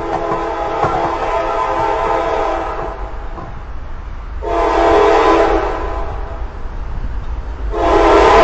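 Air horn of an approaching Norfolk Southern locomotive sounding its chord. One blast fades out over the first three seconds, a second starts about four and a half seconds in and tails off, and a third, louder one starts near the end.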